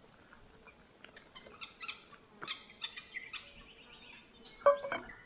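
Small birds chirping, a string of short high calls. Near the end a metal camp mug knocks once and rings briefly, as when it is set down.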